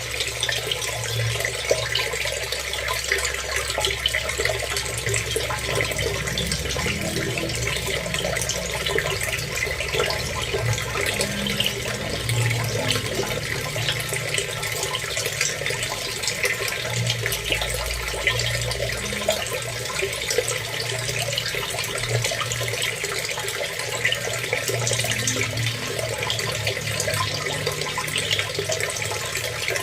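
Steady flowing water: a continuous splashing hiss with a low rumble underneath.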